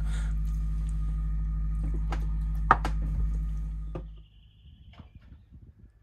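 Steady low drone of the yacht's engine running, with a few sharp knocks and clicks over it; the drone fades out about four seconds in.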